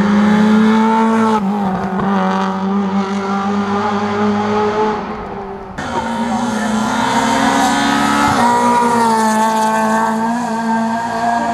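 Rally car engine running hard at high revs, its pitch shifting in steps through the gears, with a sudden change in the sound about six seconds in.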